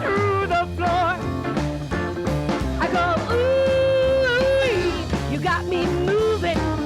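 Rock 'n' roll rhythm-and-blues song: a singer over a full band with a steady bass line, the voice holding one long note about halfway through.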